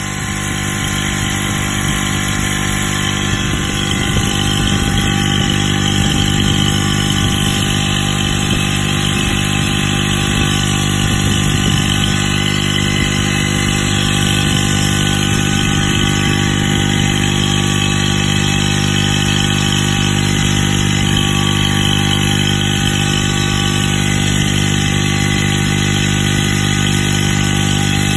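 Danfoss Performer SM120S4VC three-phase scroll compressor running on a bench run test: a loud, even mechanical hum with a faint high whine over it.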